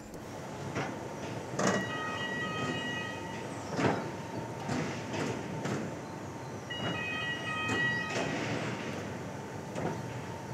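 Roller coaster train on the B&M inverted coaster being moved along the storage track onto the transfer table, rolling with knocks and clunks. An electronic warning signal of several steady tones sounds twice, about a second and a half in and again about seven seconds in, over a faint steady high tone.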